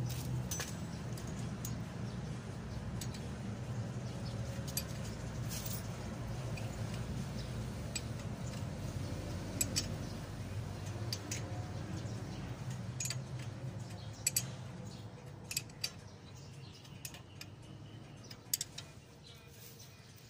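Steel ring spanner clicking and clinking on a 14 mm nut and the steering knuckle as the nut on the king pin's lock pin is tightened, in scattered taps. A steady low hum runs underneath and fades out near the end.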